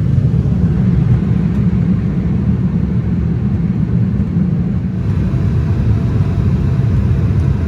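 Loud, steady low rumble of a vehicle with no distinct engine note.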